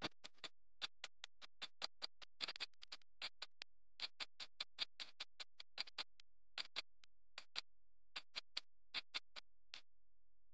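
Countdown music made of short, clipped notes in a quick, uneven rhythm with silence between them, stopping shortly before the end.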